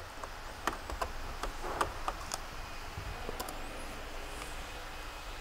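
Light, scattered clicks and taps from handling a laptop: an HDMI cable being pushed into its side port and hands on its keys and lid.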